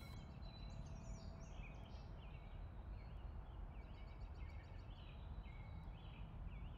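Faint ambience with small birds chirping repeatedly over a low steady background noise.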